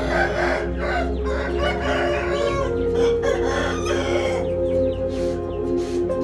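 Hard-feathered game rooster crowing, with chickens clucking, for about the first four seconds, over steady background music.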